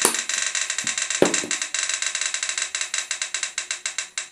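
Roulette wheel spinning, its pointer ticking rapidly past the pegs; the ticks slow gradually as the wheel loses speed. A single low knock comes about a second in.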